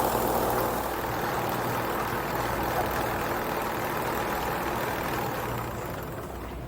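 Mountain coaster carts and track machinery running: a steady mechanical hum and rumble that slowly fades near the end.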